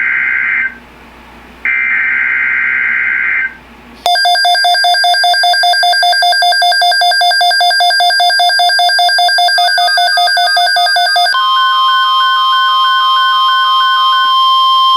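Weather-radio alert activation: two data bursts of the NWS SAME header, each about two seconds long. About four seconds in, the receivers' alarms cut in with a loud, rapid electronic beeping. Near eleven seconds it changes to a steady alert tone with a two-note warbling beep over it, signalling a new tornado watch.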